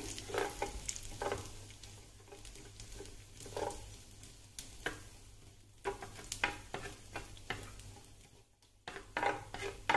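Wooden spatula scraping and tapping irregularly across a nonstick grill pan, stirring chopped cashews as they fry in a little oil to turn golden brown, over a faint sizzle. The strokes pause briefly near the end.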